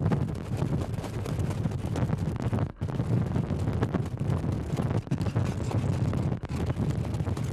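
Wind buffeting a microphone mounted on a racing sulky, over the rumble of the sulky's wheels and the hooves of trotting horses on the track. The sound cuts out for an instant nearly three seconds in.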